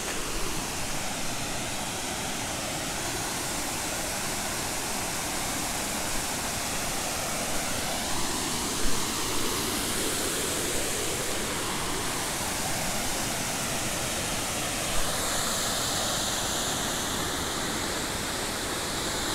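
Steady rush of Hooker Falls, a wide, low waterfall pouring into the pool below. About three quarters of the way through, the rush takes on a brighter hiss.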